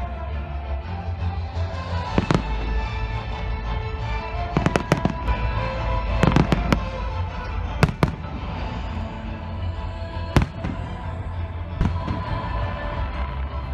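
Fireworks going off: about a dozen sharp bangs, bunched most thickly around the middle, over music playing steadily.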